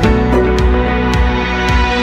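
Background music: sustained pitched notes over a deep bass, with a regular beat of light percussion hits.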